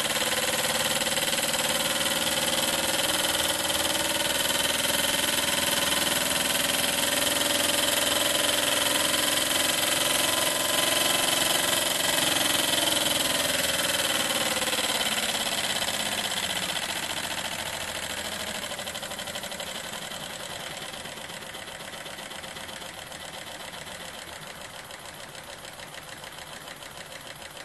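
Small rotary-valve model steam engine, run on compressed air, giving a steady fast mechanical running sound. About halfway through it drops in pitch and grows quieter as the engine slows, its flywheel keeping it turning smoothly.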